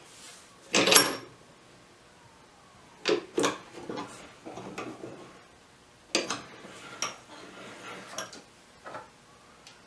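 Small hard objects handled on a workbench, clattering and clicking: a loud clatter about a second in, then two runs of light knocks and rubbing.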